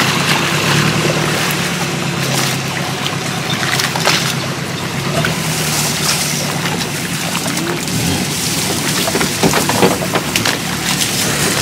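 Small boat engine idling steadily, with a few knocks from the wooden hull near the end.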